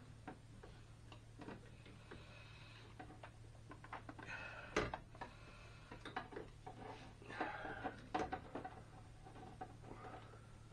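Faint clicks, scrapes and knocks of a car's brake booster being handled and offered up to the firewall, with one sharper knock about five seconds in. A steady low hum runs underneath.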